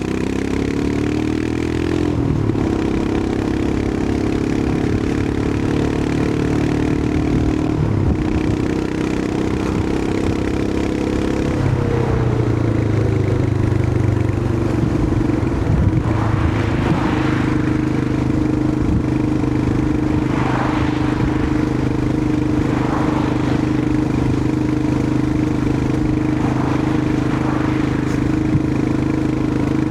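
Royal Enfield Himalayan 411's single-cylinder engine running on the move. Its note climbs at the start and steps between gears, drops around the middle as the bike slows, then holds a steady cruising note. Several brief rushing noises come in the second half.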